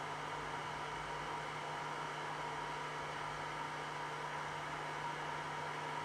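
Electric air blowers running steadily, pushing air through the hoses of a DIY 3D-printed ventilation heat exchanger: an even rush of air with a constant motor hum.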